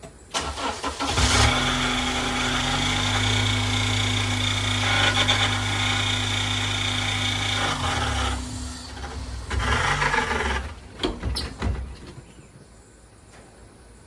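Honda Accord engine cranked by the starter, catching about a second in and running steadily. About eight seconds in the revs sag and recover, then the engine cuts off abruptly: it stalls as the clutch is let out with the e-brake still on. A few clicks follow.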